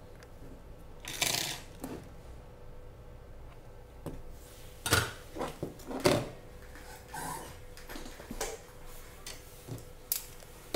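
Knocks and clatter of a small projector power-supply circuit board being handled and set down on a hard desk, with the sharpest knocks about five and six seconds in. A faint steady hum runs underneath.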